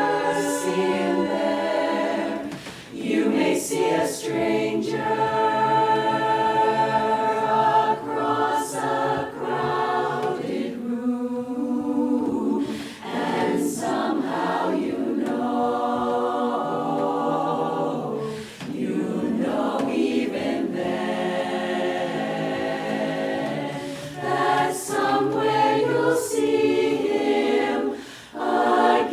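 A cappella chorus singing in harmony, with a few brief pauses between phrases.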